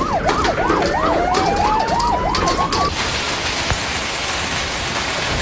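An electronic siren warbles up and down rapidly while a second tone rises slowly, over the scattered clatter of hailstones striking. About three seconds in it cuts off abruptly to a steady dense hiss of heavy hail and rain.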